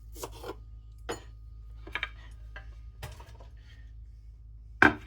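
Kitchen clatter while vegetables are being prepared: scattered knocks and clinks of a knife, cutting board and dishes, irregular rather than a steady chopping rhythm, with the loudest sharp knock near the end.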